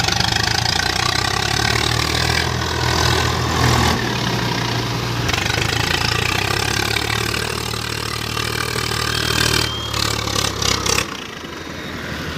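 Tractor diesel engine running steadily under a broad rushing noise, with a few short knocks near the end. The rushing noise drops off about eleven seconds in, leaving the engine hum.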